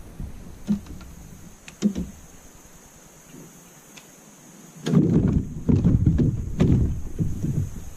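Knocks and thumps on a plastic sit-on-top kayak as gear is handled: two sharp knocks in the first two seconds, then a louder, irregular run of low thumps and rumbling from about five seconds in.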